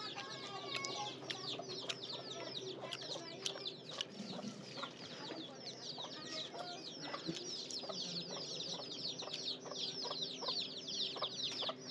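Many small birds chirping busily: a dense, unbroken run of short, high, falling chirps.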